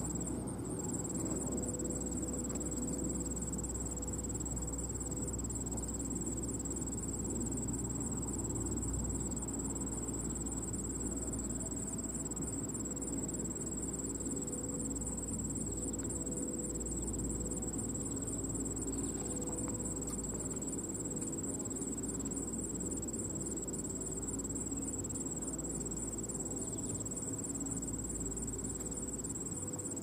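Insects trilling: a continuous high buzz with a fast pulse in it. Underneath, a faint steady low tone fades in and out.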